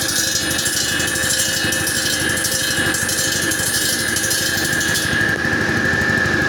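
Walk-behind concrete and asphalt cutting saw's 6 HP Mitsubishi petrol engine running steadily, with a steady high whine over the engine's fast pulsing. The high hiss eases about five seconds in.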